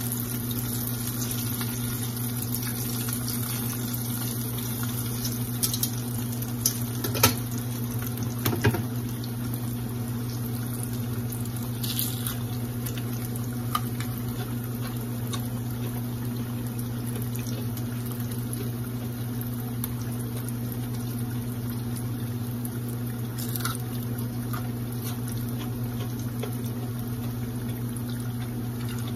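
Battered onion rings deep-frying in oil in a cast-iron skillet: a steady sizzle and bubbling, under a steady low hum. A few sharp clicks come between about six and nine seconds in.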